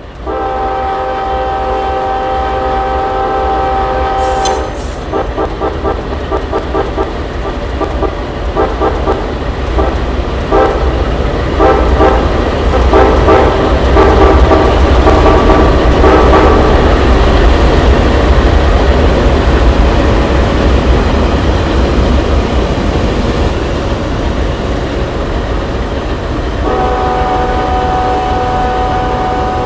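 BNSF freight locomotive's air horn sounding several notes at once: one long blast, then a long run of short, choppy blasts. After that the train keeps running by with a steady low rumble and no horn, and another long blast starts near the end.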